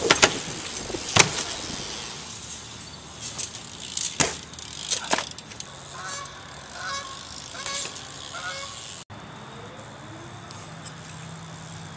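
BMX bike on concrete, giving a few sharp knocks and clacks from tyres and frame landing. About six to eight seconds in comes a run of short, repeated honk-like calls. After a cut, a steadier low hum.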